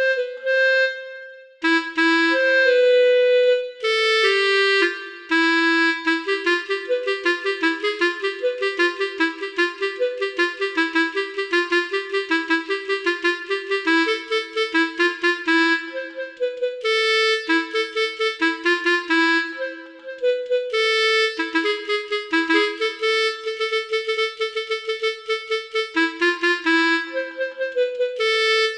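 Multi-trumpet 'telolet' bus horn playing a fast melody, often two notes at once, starting abruptly with a brief break about twenty seconds in.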